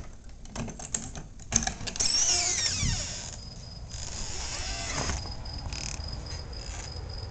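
Clicks and handling knocks from a hand-held camcorder being carried, then a squeak gliding down in pitch about two seconds in as a door is opened. After that a steady, high chirring of crickets carries on.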